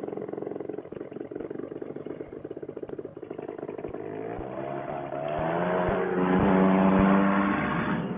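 Paramotor trike's Fresh Breeze Monster two-stroke engine, fitted with a rebuilt silencer, being throttled up for takeoff: it rises in pitch and gets much louder from about halfway through, then eases off a little near the end. A few low knocks are heard along the way.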